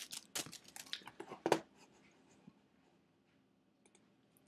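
A quick run of clicks and rustles, like something being handled, with a louder one about a second and a half in, then near silence.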